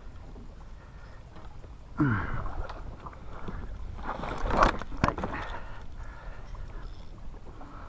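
Knocks and clatter of gear against an aluminium boat hull, loudest between about four and five seconds in, after a short falling voice sound about two seconds in.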